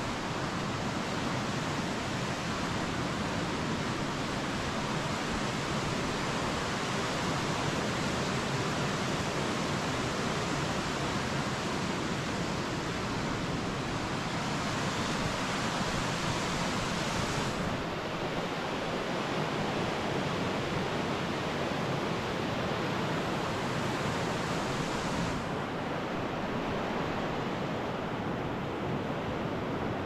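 Waterfall water rushing in a steady, unbroken hiss.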